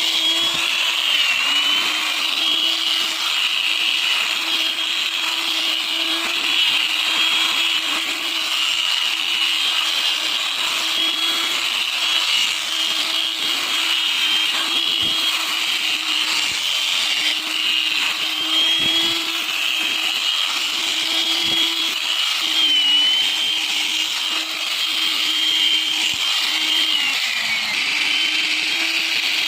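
Electric power tool motor running continuously with a steady whine that dips briefly in pitch every few seconds as it takes load.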